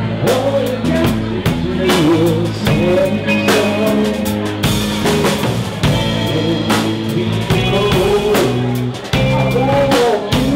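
Live rock band playing: drum kit with electric guitar and bass, picked up loud and raw on a camera's built-in mic.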